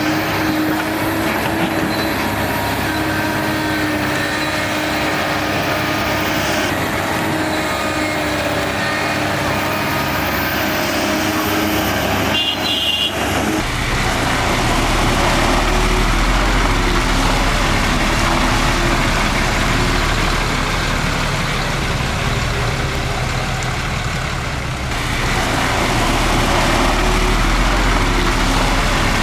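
Heavy diesel earthmoving machinery running under work. It has a higher, tonal engine sound at first, then changes suddenly about halfway through to a deeper, steadier engine sound.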